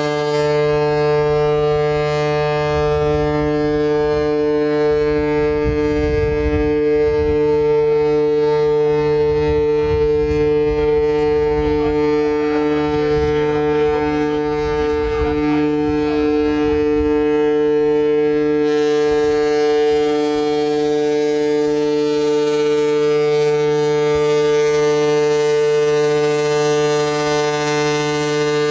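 Ship's horn sounding one long, steady, deep blast that holds the same pitch throughout, a farewell salute for the ferry's last voyage.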